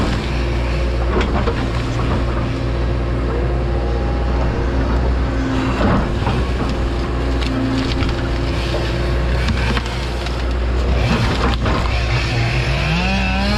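Excavator's diesel engine running steadily under hydraulic load while the bucket and thumb shove brush and stumps onto a pile, with a few knocks and cracks of wood. Near the end the engine pitch rises.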